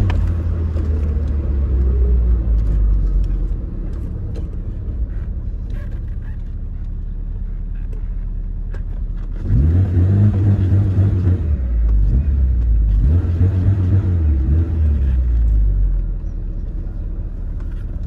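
Tofaş Doğan SLX engine and exhaust heard from inside the cabin while driving: a steady low running sound. About halfway through the throttle is opened and it gets suddenly louder, with the pitch rising twice, then eases off shortly before the end.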